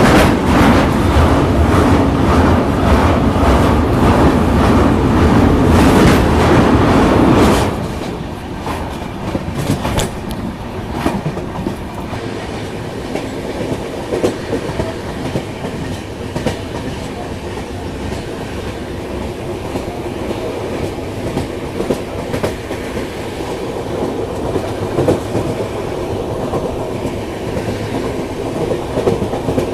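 Indian Railways LHB passenger coach rolling over a steel truss bridge: a loud rumble and clatter of wheels on rails. About seven and a half seconds in it drops suddenly to a quieter steady rolling noise with scattered clicks over rail joints.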